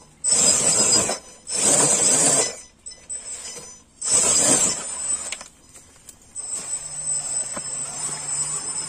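RC rock crawler climbing a steep dirt gully: its motor and drivetrain run with tyres scrabbling over loose dirt and dry leaves. There are three loud bursts of about a second each, then a steadier, softer drive with a thin high whine from about six seconds in.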